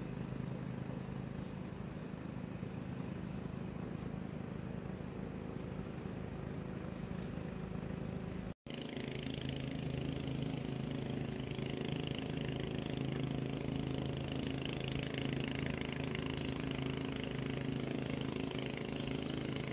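A small engine running steadily with an even low hum. It breaks off for an instant about eight and a half seconds in, then carries on with a higher hiss over it.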